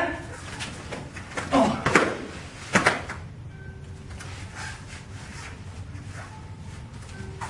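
Karate self-defence drill on foam mats: a few quick hits and short sharp shouts come in a burst about one and a half to three seconds in, as one partner is taken down onto the mat.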